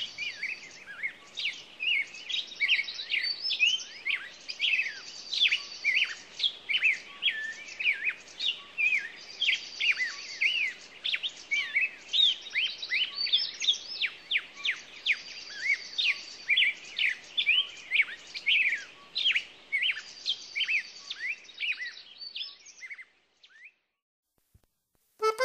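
Many birds chirping and singing at once: quick, overlapping, downward-sliding chirps, with a buzzy trill coming back every few seconds. The birdsong thins out and stops about two seconds before the end.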